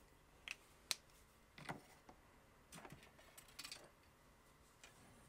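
Near silence, broken by a handful of faint clicks and taps from a marker pen, steel ruler and plastic rod being handled on a cutting mat.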